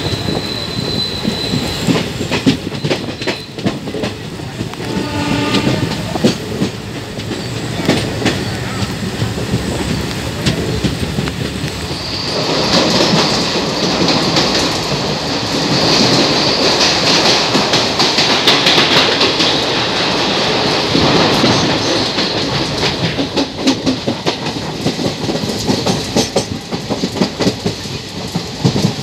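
Passenger express train running along the track heard from an open coach window, wheels clicking and knocking over the rail joints. From about twelve seconds in to about twenty-two seconds it turns into a louder, fuller rumble as the train runs through a tunnel, then the wheel clicks return.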